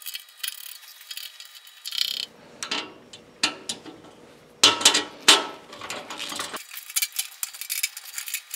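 Hand socket driver turning 10 mm nuts onto a caster's mounting bolts, metal on metal: runs of rapid small clicks, with a few louder sharp clinks about halfway through.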